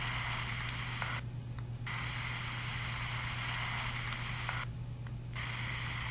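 Hiss from a handheld digital voice recorder's small speaker playing back an EVP recording, cutting out abruptly twice for under a second each, over a steady low hum.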